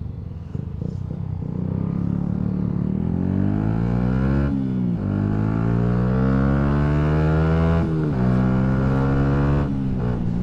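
Yamaha MT-125's single-cylinder four-stroke engine, through a Scorpion Serket full exhaust, accelerating with its pitch rising through the gears. The pitch drops sharply at an upshift about four and a half seconds in and again about eight seconds in, then holds steadier before easing off near the end.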